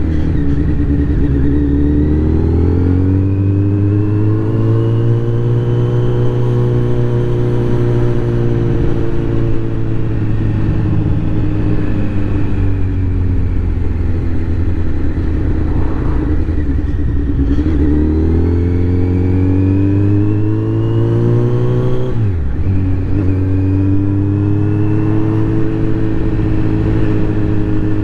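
Motorcycle with an Akrapovic exhaust heard from on board while riding: the engine pulls up through the revs, holds, eases off, then pulls again. About two thirds of the way through there is a sharp drop and recovery in revs, as at a gear change.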